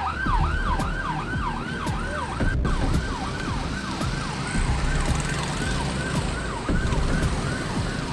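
Emergency-vehicle siren in a fast yelp, its pitch sweeping up and down about three to four times a second and growing fainter in the second half, over the low rumble of road traffic.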